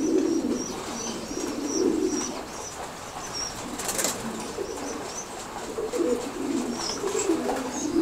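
Many fancy pigeons cooing together in a loft, their low coos overlapping and swelling again and again. Short high chirps run along over them, with a brief sharp sound about four seconds in.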